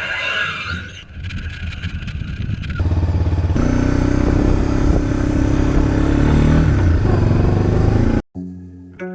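ATV engine starting and running, growing louder about three seconds in as it revs and pulls away. It cuts off suddenly near the end and is followed by music with plucked bass strings.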